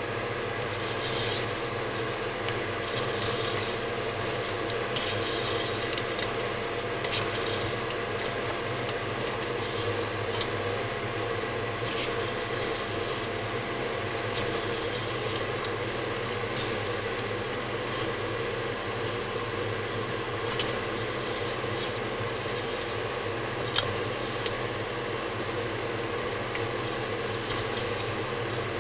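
Wooden spatula stirring sugar-coated hazelnuts in a stainless steel saucepan: the nuts rattle and scrape against the pan in repeated bursts, with a few sharp clicks, over a steady hum.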